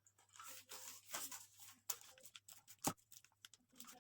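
Product packaging being handled: faint rustling and crinkling with scattered light taps, and one sharper click about three seconds in.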